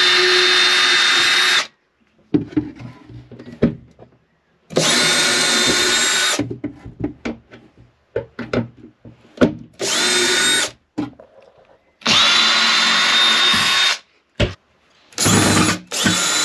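Makita cordless drill-driver backing screws out of metal corner brackets and a plywood panel. It runs in short spurts of one to two seconds, about six times, with clicks and knocks of screws and handling in between.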